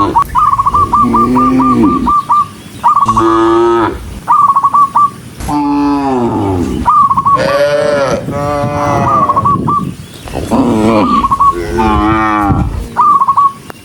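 Cattle mooing, one long call after another, each bending in pitch. Short, high, fast-repeating chirping notes sound between the calls.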